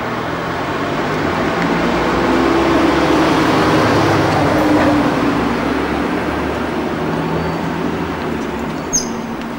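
A motor vehicle with a heavy engine drone passing by, its sound swelling over the first few seconds and slowly fading away. A single sharp click near the end.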